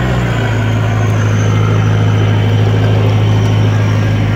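Off-road vehicle's engine running steadily under load as it pushes through swamp water, heard from inside the cabin; the revs drop a little just after the start and then hold.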